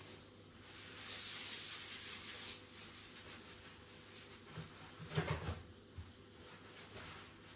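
Cleaning at a kitchen counter: a cloth or sponge rubbing and scrubbing for a couple of seconds, then a few knocks about five seconds in as things on the counter are handled or set down.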